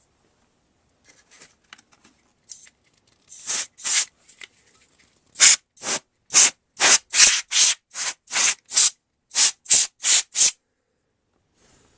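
Quick puffs of air blown into an opened DVD recorder drive to clear out dust, a rapid series of short hissing blasts at two to three a second, with a couple of softer puffs before them. The owner hopes the dust is why the drive won't load a disc.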